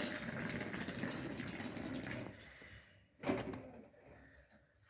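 Tea being poured from a teapot into a glass, a steady splashing stream for about two seconds that tails off. A brief louder sound follows about three seconds in.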